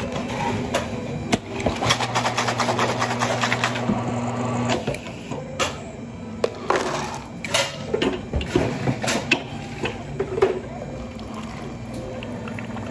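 A small motor-driven machine runs steadily with a rattle for about three seconds, starting about two seconds in, then stops; scattered knocks and clatter follow.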